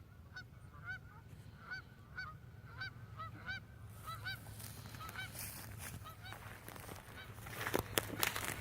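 A flock of gulls calling: many short, arched calls, several a second and overlapping. Near the end, a few loud knocks and rustling close to the microphone.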